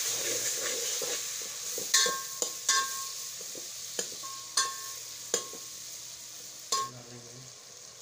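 Spiced onion masala frying in an aluminium pot while a steel ladle stirs it; the ladle clinks sharply against the pot about seven times, each with a short ring. The sizzle dies down gradually.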